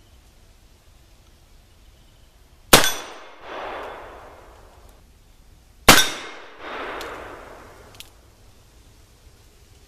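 Two shots from a .44 black powder revolver, a Pietta copy of the Colt 1851 Navy, about three seconds apart. Each sharp report is followed within a second by a softer, drawn-out echo.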